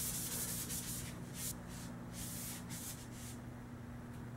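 A de-blued air-rifle barrel being scrubbed back and forth with a green abrasive pad: an uneven, stop-start hissing rub as the bare metal is polished.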